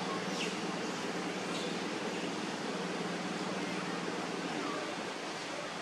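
Steady outdoor background hiss with a low, even hum that fades out about four and a half seconds in, and two brief high chirps in the first second and a half.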